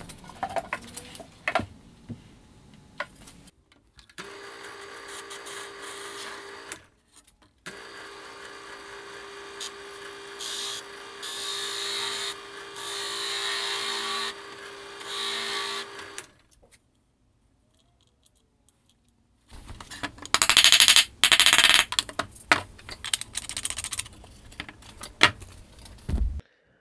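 Bench drill press running with a steady hum, stopping briefly and starting again, its bit boring into a melamine-faced chipboard drawer front in several louder stretches. A few knocks of the board being handled come before it; after a short silent gap, loud irregular scraping and knocking follow.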